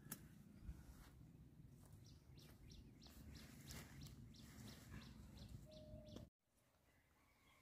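Faint rustling and crackling of leafy plant stalks being cut and gathered by hand, with a small bird chirping a quick, repeated note in the background. The sound drops abruptly about six seconds in.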